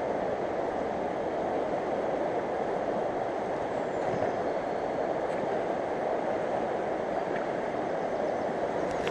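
A mountain river's water rushing steadily over its bed, an even, unbroken roar.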